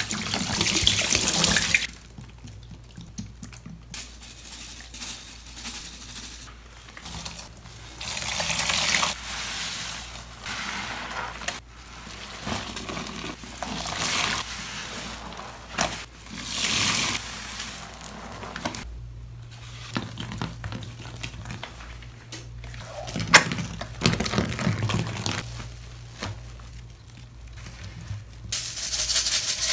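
Liquid cleaners poured onto sponges and foam-soaked sponges squeezed by gloved hands in a bowl, heard as a series of separate wet bursts. At the start, blue and pink Ajax all-purpose cleaner pours onto waffle-textured heart sponges; near the end, a purple liquid pours onto them in a bath of foam.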